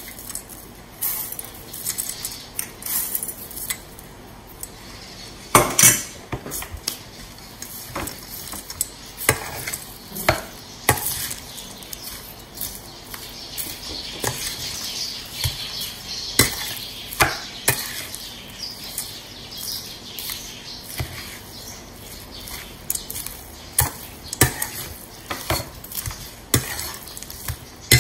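A metal spoon stirring a moist crumbled tofu and potato mixture in a stainless steel bowl. The spoon makes irregular clinks and knocks against the bowl, with soft scraping in between.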